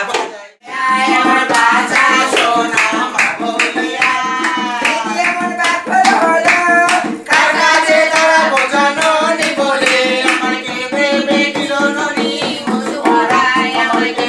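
A woman singing a folk song to a dholak, a two-headed barrel hand drum, beaten in a quick steady rhythm, with a brief break about half a second in.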